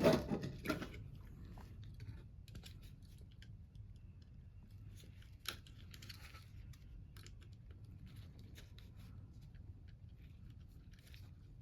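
Faint scattered clicks and rustles of wires and small parts being handled during electrical wiring, with one sharper click about five and a half seconds in.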